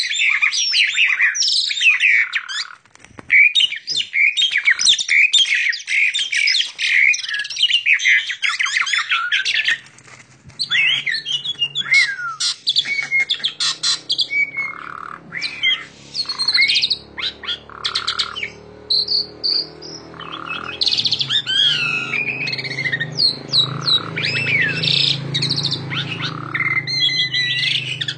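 Male pied starling (jalak suren) singing a long, rapid song of varied whistles, chatters and slurred notes, filled with mimicked phrases. The song runs unbroken for the first third, then comes in broken phrases over a low steady hum.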